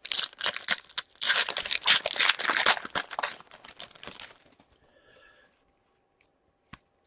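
Trading-card pack wrapper crinkling and tearing for about four seconds as a pack is opened and handled, then a single small click near the end.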